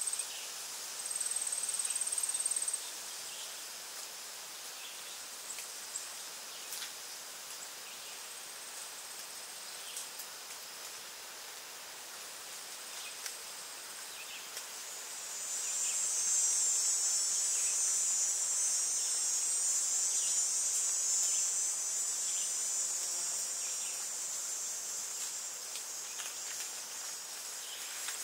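Insects buzzing steadily in a high-pitched band. The buzz drops away about three seconds in and swells back louder from about halfway through.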